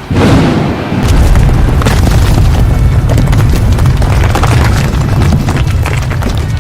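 A sudden loud boom, then sustained heavy low rumbling with crackles, like an explosion sound effect, over music.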